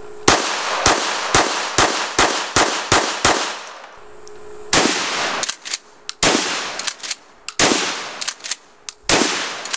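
A semi-automatic pistol fires in quick succession, about eight shots in the first three and a half seconds. Then a pump-action shotgun fires four blasts about a second and a half apart, each with a longer ringing decay, and smaller sharp sounds fall between them.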